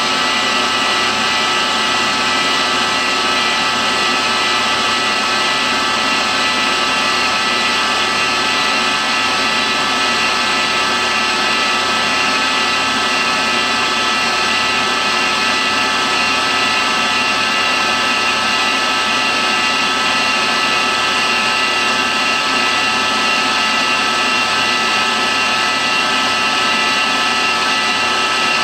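CNC milling machine spindle running with an end mill cutting a pocket in a cast iron part: a steady whine over even cutting noise, unchanging throughout.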